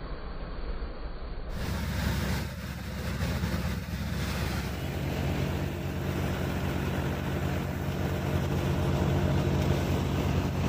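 Tractor-powered paddy thresher running steadily at working speed, the tractor engine and threshing drum and fans giving a constant low hum with a rushing noise over it.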